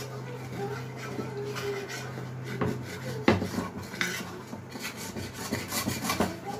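A wooden spatula scrapes dried, stuck-on lentil residue from the bottom of a non-stick karahi with a little water in it, loosening it before washing. The scraping is broken by a few knocks of the spatula against the pan, the loudest about three seconds in, over a steady low hum.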